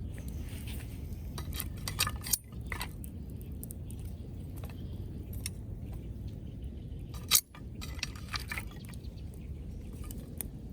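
Scattered light metallic clinks and knocks over a steady low rumble, with the sharpest knock about seven seconds in.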